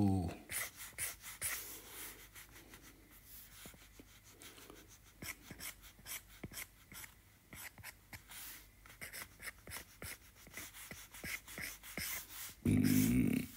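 Stylus tapping and scratching across an iPad Pro's glass screen while sketch lines are drawn: a run of quick light strokes and taps. A short voiced hum near the end.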